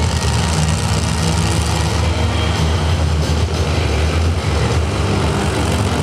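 Over Bored monster truck's engine running steadily at low revs, a deep, even rumble with no revving, as the truck rolls slowly.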